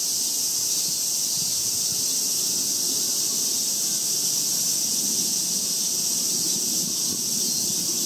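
Steady high-pitched hiss of a summer cicada chorus, unbroken throughout, over a faint low rumble.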